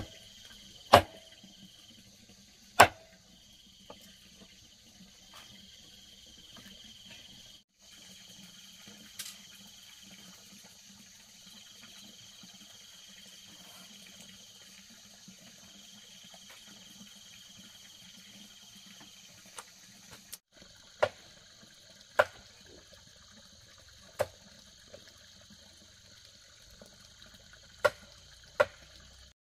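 Insects chirping steadily in the background, a high trill in stretches of about a second and a half. Sharp knocks break in: twice near the start and five or six times in the last third.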